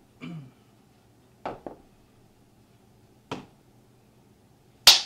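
A few sharp clicks and knocks of things handled on a wooden table: a pair close together about one and a half seconds in, another past three seconds, and the loudest just before the end. A short vocal sound comes at the very start.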